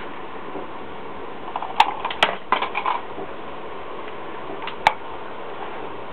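Handling noise: a quick cluster of sharp clicks and light knocks about two seconds in and one more sharp click near five seconds, over a steady hiss.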